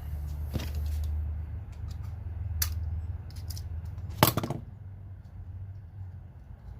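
A 1/4-inch drive ratchet being handled: a couple of sharp single clicks, then a quick run of rapid clicks about four seconds in, the loudest sound. A low steady hum runs underneath.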